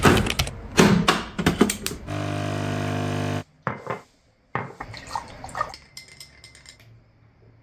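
Clicks and knocks as a capsule coffee machine's lever is shut and a mug is handled, then about a second and a half of the machine's pump buzzing steadily while it brews. After a short break come light clinks of tableware, with a quick run of small clinks near the end.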